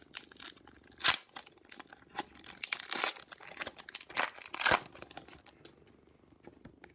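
Hockey card pack wrapper crinkling and tearing as it is ripped open, in irregular crackly bursts that are loudest about a second in and again around four to five seconds in, then fading to a few faint rustles.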